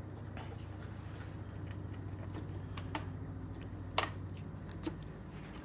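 Scattered light clicks and taps of hands handling wires and plastic parts of an RC truck's electronics, the sharpest about four seconds in, over a steady low hum.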